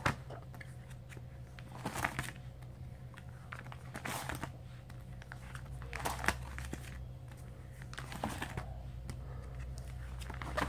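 Plastic nine-pocket binder pages crinkling as they are turned one after another, a short rustle about every two seconds.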